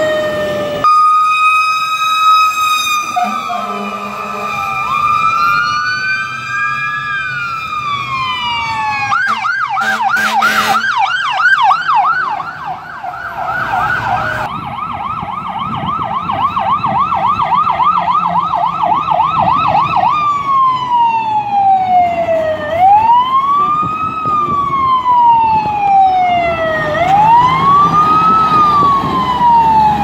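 Fire truck sirens from several passing rigs, cut together. A held high tone comes first, then a fast yelp from about nine seconds in, then a slower rising and falling wail in the last third.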